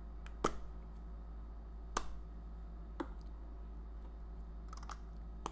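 A few short, sharp clicks about a second apart: a Charlotte Tilbury Hot Lips 2 refillable lipstick case and its refill bullet being handled and fitted together. A low steady hum lies underneath.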